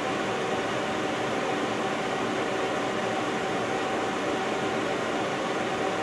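Robinair 34788NI A/C refrigerant recovery machine running with a steady hum and hiss during its oil-drain stage, as recovered compressor oil is drained into its oil bottle.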